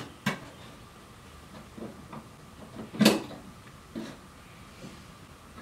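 Wire chicken-leg rack clinking and knocking as drumsticks are slid onto its holders: a few separate metal knocks, the loudest about three seconds in.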